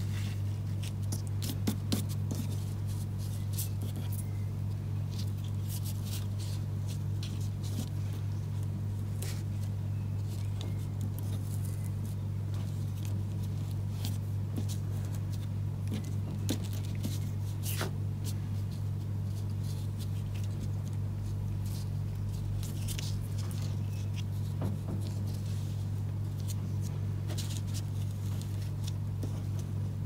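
Hands tying a twine bow around a cardstock panel: faint rustling, scraping and light ticking of the twine and card, over a steady low hum.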